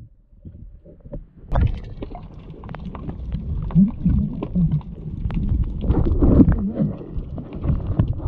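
Muffled underwater rumble from water rushing past a camera on a diving spearfisher, with scattered clicks and knocks and a few short, low wavering tones in the middle.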